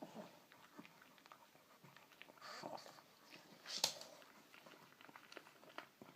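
A pug gnawing on a bone, with many small clicks, mixed with the dog's own short noises; the loudest one comes about four seconds in. The noises are the pug's excitement at getting the bone.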